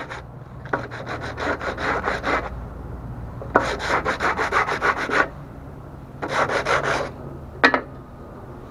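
Hand sanding a thin wooden strip with a sheet of sandpaper: three runs of quick back-and-forth scratchy strokes, then a single sharp knock near the end.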